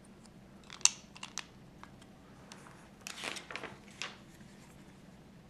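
Plastic Lego pieces clicking as they are handled and pressed together: a sharp click about a second in, a few lighter clicks just after, then a short rattle and another click about four seconds in.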